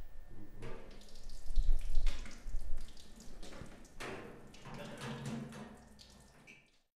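Liquid running from a tap and hose and splashing into a stainless steel brewing vessel, with some clatter from handling the fittings. It is loudest about two seconds in and fades away near the end.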